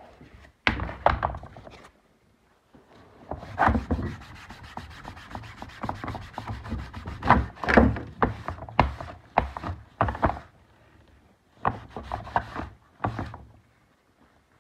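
A rag rubbing quickly back and forth over a plastic lid, scrubbing off solvent-soaked permanent marker, in spurts of strokes with short pauses and a few knocks of the lid against the wooden board under it.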